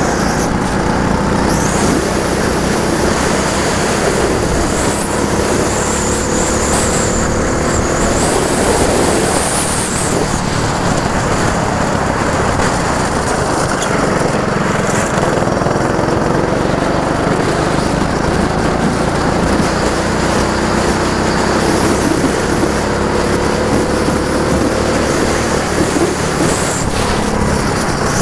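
Small go-kart engine running at speed, its pitch climbing several times and dropping back as it accelerates and lifts off, over a rough rumble of noise.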